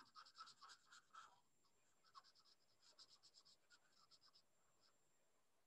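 Felt-tip marker rubbing on paper in quick back-and-forth colouring strokes, several a second, faint, dying out near the end.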